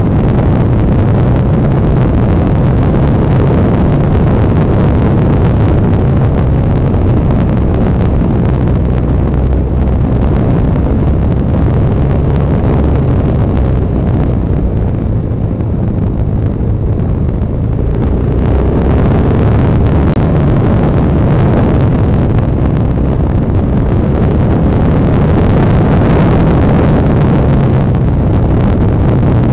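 Honda NX650 Dominator's single-cylinder four-stroke engine running under way, with wind noise on the microphone. The sound softens and loses its top for a few seconds about halfway through, then picks up again.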